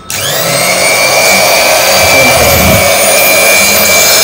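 Electric cloth cutting machine switched on: its motor spins up with a quickly rising whine, then runs at a steady high-pitched whine.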